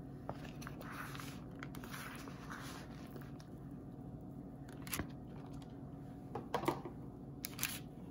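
Grated soap scraps crunching and crackling as hands scoop them from a plastic tray and squeeze them into a firm ball, with a few sharper clicks and scrapes in the second half.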